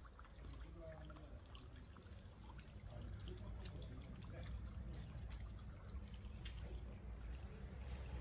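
Faint running water from a fountain, splashing and trickling steadily, with scattered small clicks and a low rumble underneath.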